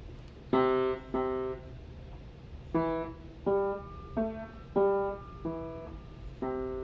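Upright piano played one note at a time by a young child, picking out a simple alarm-clock jingle. Two notes come about half a second in, then a short pause, then about six more at a slow, uneven pace.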